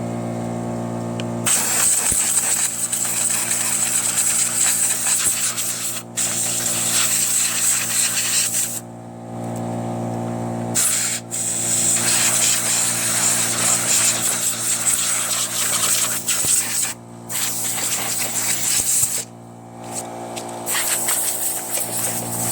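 Compressed-air blow gun hissing in long blasts, blowing debris out of a mower, with brief stops about six, nine, seventeen and nineteen seconds in. A steady machine hum runs underneath and stands out in the breaks.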